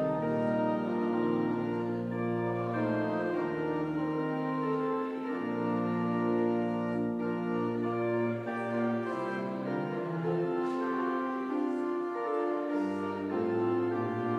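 Organ playing a hymn in full, held chords that change every second or two.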